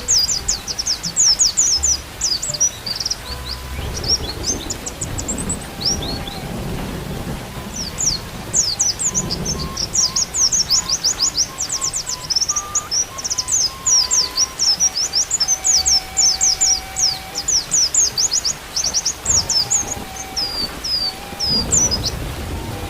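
White-eye (pleci) song: rapid, high chittering phrases that break off briefly about six seconds in. Underneath are soft held flute notes and a rain backdrop with low rumbles.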